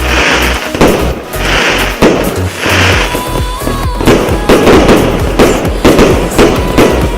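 120-shot, 1-inch-calibre consumer firework cake firing a rapid string of shots, about two a second at first and coming faster in the second half, with patches of hissing between them. Background music plays underneath.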